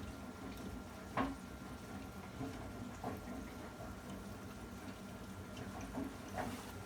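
Baxi Compakt 24 kW gas boiler knocking while it runs: several irregular metallic knocks, the loudest about a second in, over a steady hum. The owner traces the knocking to the four nuts holding the burner to the heat exchanger being done up too tight.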